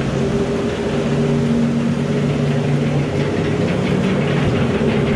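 Log flume conveyor machinery running: a steady mechanical hum with several low tones, with light clattering in the second half.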